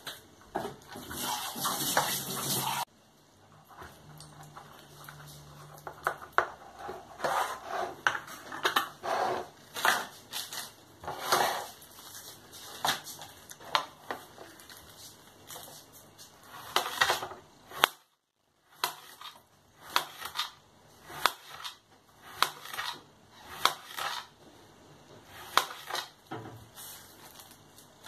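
Kitchen prep sounds: a spoon scraping and clinking in a bowl at first, then a run of short, irregular knocks and taps as a knife cuts a cucumber into slices on a plastic tray. The sound drops out briefly about two-thirds of the way through.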